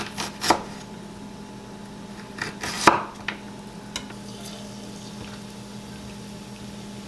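Chef's knife slicing a peeled achira rhizome on a wooden cutting board: several sharp taps of the blade against the board, the loudest about three seconds in.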